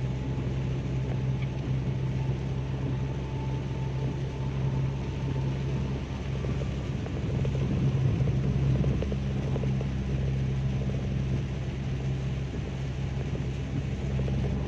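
Steady low drone of a car moving at speed, heard from inside the cabin, with an even hiss of heavy rain and tyres on the wet road. It swells slightly about eight seconds in.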